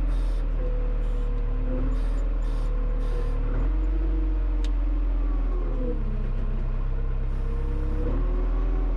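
Front-loader tractor's engine running steadily under load. Its pitch drops and shifts a few times as engine speed changes, with several short bursts of high hiss over it.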